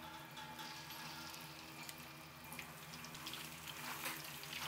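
Hot cooking oil in a wok sizzling faintly with scattered crackles over a low steady hum, growing louder near the end as marinated beef slices are tipped into the oil to deep-fry.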